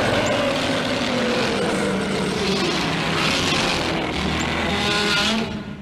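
A motorcycle engine running loudly, its tone falling slowly over the first couple of seconds, then fading out near the end.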